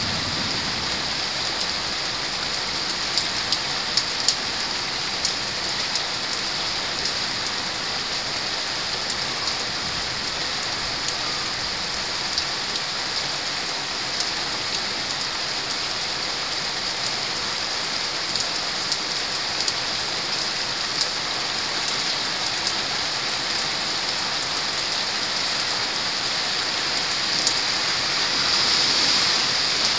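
Rain falling steadily on the roofs, an even hiss with scattered ticks of single drops close by.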